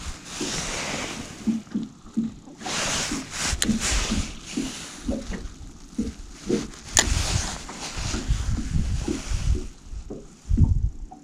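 Water sloshing and splashing against a small boat, with irregular knocks and rumbles and a couple of sharp clicks.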